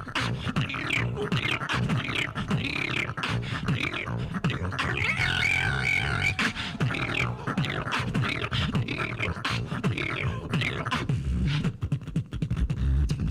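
Solo beatbox performance over a microphone: steady mouth-made bass kicks and snare-like clicks, with a held pitched vocal tone layered in about five seconds in.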